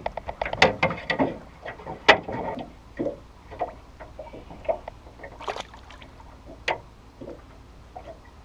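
Irregular sharp knocks and clatter from a landing net and a small pike being handled against the side of a metal fishing boat, loudest about two seconds in and again near the end.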